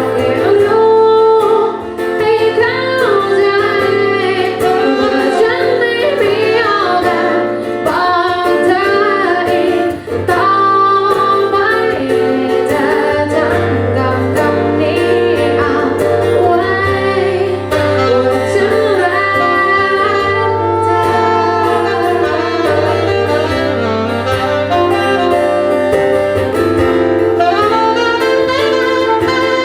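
A band performing a song, with a saxophone-like lead melody and singing over steady accompaniment.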